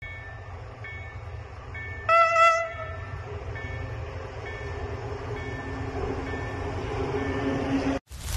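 Electric locomotive sounding its horn once, briefly, about two seconds in as it approaches, over the low rumble of the train, which grows louder until the sound cuts off abruptly near the end.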